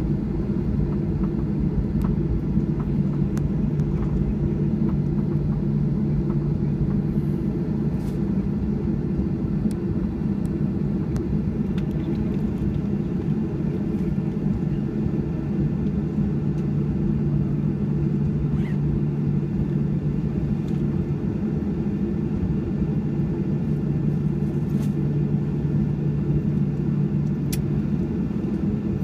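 Cabin noise of a Boeing 737-700 taxiing: the CFM56 engines at idle give a steady low rumble with a hum.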